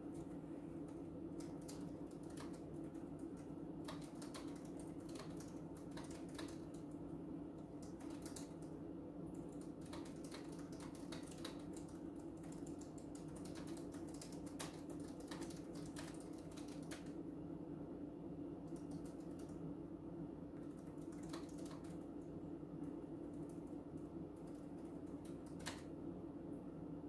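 Laptop keyboard typing: a fast, steady run of key clicks that thins to occasional keystrokes over the last third, over a steady low hum.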